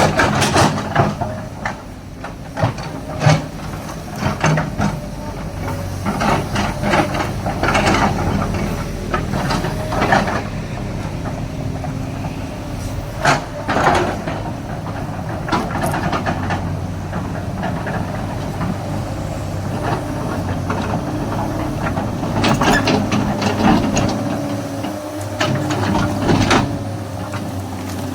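SANY excavator's diesel engine running steadily under load, with irregular metallic clanks and knocks from the machine working through mud.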